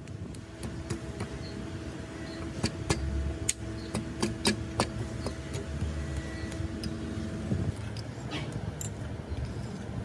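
Light metallic clicks and clinks as steel pushrods and tubes are handled and fitted into a small air-cooled engine's cylinder head. They sound over a steady background hum and low rumble, and the hum stops about three-quarters of the way through.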